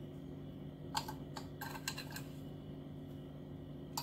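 A few light kitchen clicks and taps, mostly bunched together from about one to two seconds in, over a steady low hum.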